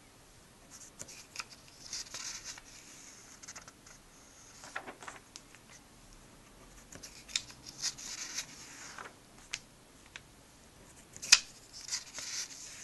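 Pages of a comic book being turned by hand: short papery swishes and rustles every few seconds, with a sharp crisp snap of a page near the end.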